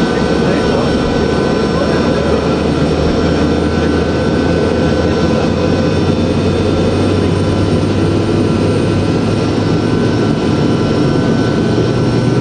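Steady drone of a C-130 Hercules's four turboprop engines in flight, heard from inside the cargo hold with the rear ramp open, over a dense rush of air. Its lowest hum rises slightly in pitch near the end.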